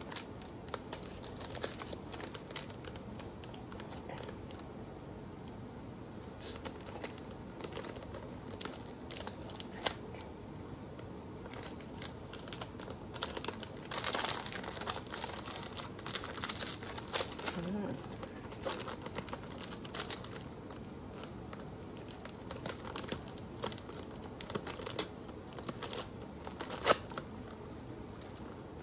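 Plastic toy packaging crinkling and tearing as miniature accessories are unwrapped and handled, with many small clicks and taps of plastic pieces and one sharp click near the end.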